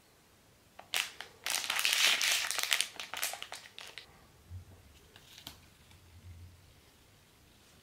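Plastic packet of gyoza wrappers crinkling as it is handled, a dense rustle lasting about two seconds after a single click, then a few faint soft taps as a wrapper is lifted off the stack.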